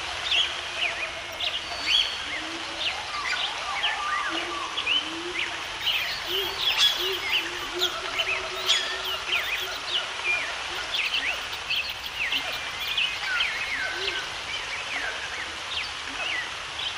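A chorus of many birds chirping and calling, with short quick chirps scattered throughout over a steady background hiss. A lower, wavering call comes and goes in the first half.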